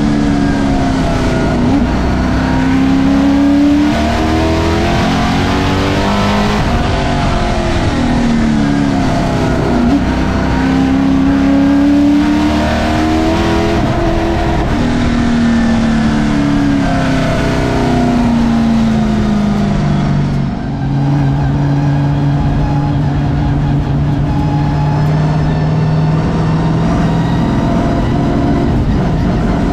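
Vintage stock car's racing engine heard from inside the cockpit, the revs climbing and then dropping off over and over as it laps a short oval. About twenty seconds in the revs dip briefly, then hold at a steady lower pitch.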